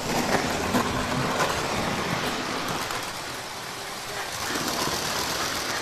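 Busy exhibition-hall ambience: indistinct chatter over a steady noisy rumble, with a few sharp clicks in the first second and a half.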